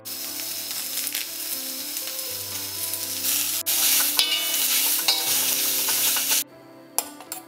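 Fresh coriander, mint and methi leaves sizzling as they fry in hot fat in a metal kadai, with soft background music underneath. The sizzle cuts off suddenly about six seconds in.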